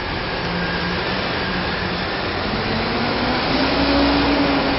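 MD900 Explorer helicopter's turbine engines running out of sight, a steady loud whooshing noise with a low hum underneath that rises in pitch and grows a little louder about three seconds in.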